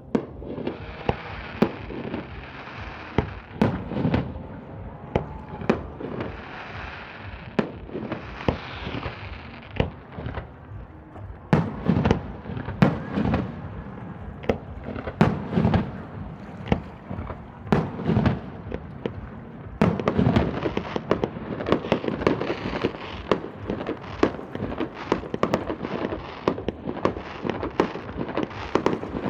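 Aerial fireworks going off: a steady run of sharp bangs with crackling and hissing between them, becoming a dense, rapid barrage of bangs about two-thirds of the way through.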